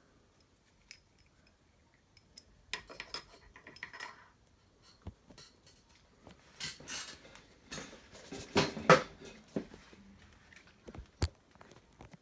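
Irregular metallic clinks, rattles and clicks of metal parts being handled, with the loudest clatter about nine seconds in and a single sharp click near the end; no machine running.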